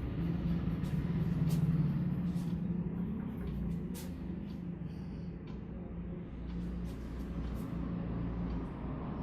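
Hands massaging a head, heard as short crisp rubbing and tapping sounds on hair and scalp, over a steady low background drone that is loudest in the first couple of seconds.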